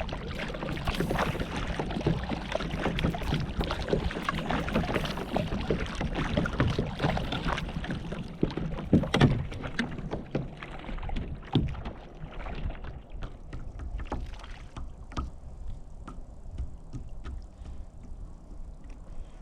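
Water sloshing and splashing against a kayak, with many short knocks and clicks on the hull. It is busy and fairly loud for about the first ten seconds, then eases off.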